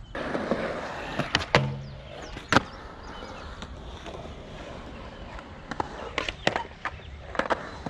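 Skateboard on a concrete skatepark: a few sharp board clacks in the first seconds, the loudest about two and a half seconds in, then the wheels rolling with a steady rumble, and a quick string of clacks and pops near the end.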